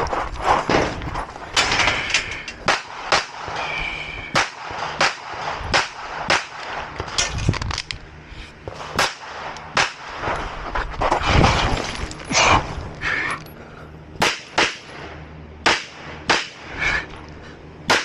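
Pistol fired in a string of shots at irregular intervals, often in quick pairs, with short pauses between groups of shots.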